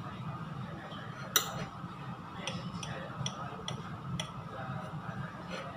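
Table knife and fork clinking against a plate while cutting a pancake: one sharp clink about a second and a half in, then a string of lighter clicks.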